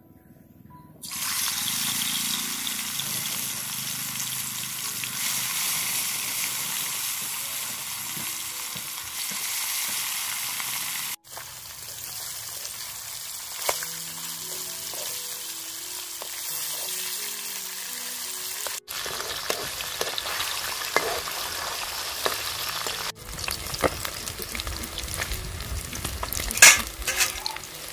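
Pieces of fish frying in hot vegetable oil in a kadai: a loud, steady sizzle starts about a second in. Scattered clicks and scrapes come in the last few seconds.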